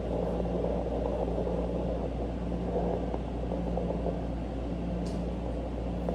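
Home fetal Doppler's loudspeaker giving a steady, rough whooshing static with the baby's fast heartbeat in it, at about 141 beats a minute.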